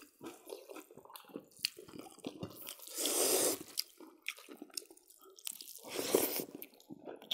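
Close-up mouth sounds of people eating rice and pork curry by hand: wet chewing and lip smacking as a run of short clicks, with two longer, louder noisy mouth sounds about three and six seconds in.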